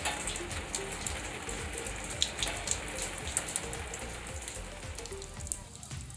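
Water drops pattering after rain: a steady hiss with scattered sharper ticks of single drops.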